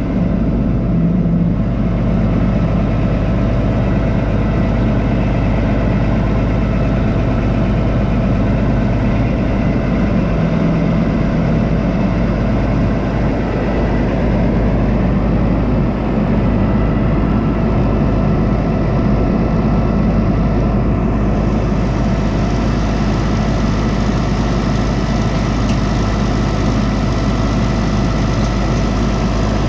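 New Holland TJ375 tractor's Cummins six-cylinder diesel engine idling steadily, with an even, unchanging note.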